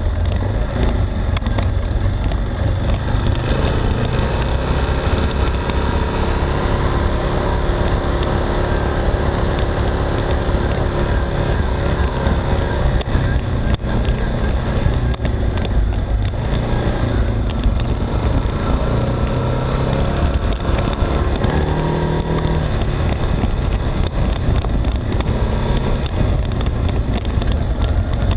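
ATV engine running at low trail speed, its pitch rising and falling with the throttle, with scattered knocks and rattles from the machine jolting over the rough dirt trail.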